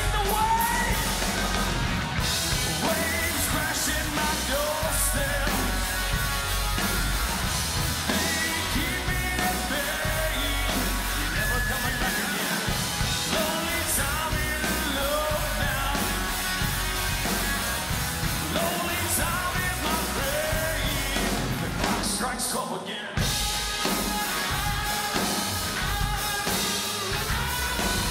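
Live rock band playing with a sung lead vocal over acoustic guitar, drum kit and bass guitar. The band sound drops out for a moment about three-quarters of the way through, then comes back in.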